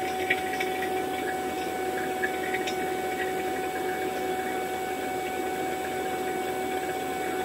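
Fieldpiece VP85 two-stage vacuum pump running steadily with a constant hum, pulling a vacuum on a refrigerant recovery tank. A few light ticks in the first few seconds.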